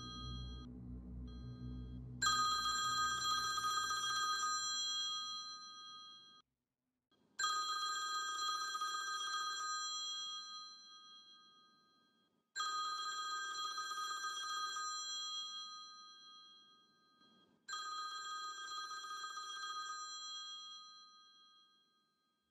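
A ringing, bell-like tone sounds four times, about five seconds apart, and each one fades away over about four seconds. A low rumble dies away in the first few seconds.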